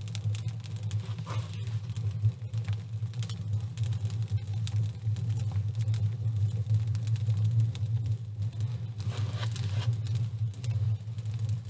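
Hands patting, rubbing and crumbling dry clay soil packed onto a metal stove, a run of small scratches and crackles. A steady low hum sits underneath throughout.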